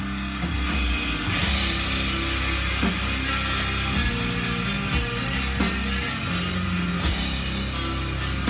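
Instrumental rock music with electric guitar and drum kit, played from a vinyl record on a turntable.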